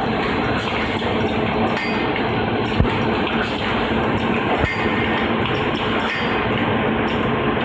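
Pet treat production-line machinery running: a loud, steady mechanical din with a constant low hum, broken by two short knocks, one about three seconds in and another about a second and a half later.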